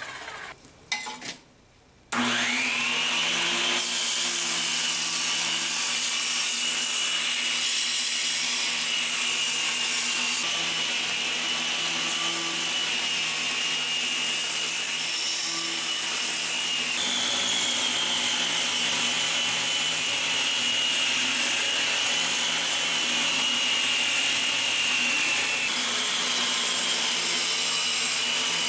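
Belt grinder starting up about two seconds in with a rising whine, then running steadily while its abrasive belt grinds a steel knife blade held in a jig.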